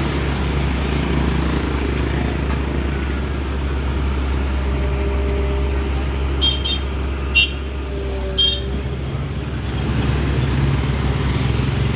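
Heavy diesel machinery running steadily with a low drone. Three short, high-pitched squeaks or toots come a little past the middle.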